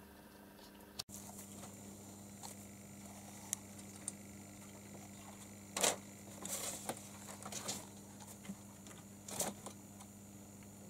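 A cat scrabbling up onto shelves: a few short rustles and scrapes of its paws, the loudest about six seconds in, over a steady low hum.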